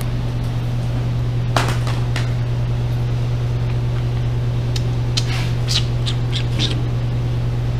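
Carburetor bank being forced into its rubber intake boots on a Honda Magna 750 V4, not yet seated. A scrape about a second and a half in, then a quick run of short rubbery squeaks and scrapes, over a steady low hum.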